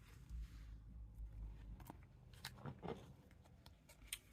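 Faint crinkling and a few small clicks of a thin plastic penny sleeve and trading card being handled, as a card is worked into the sleeve.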